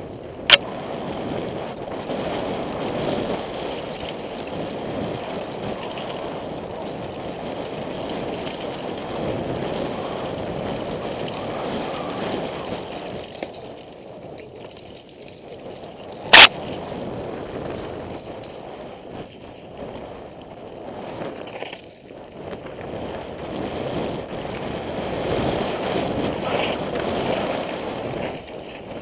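Downhill mountain bike rolling fast over a dirt and gravel trail: steady tyre and rattling noise that swells and eases with the terrain, with two sharp knocks, one about half a second in and one about sixteen seconds in.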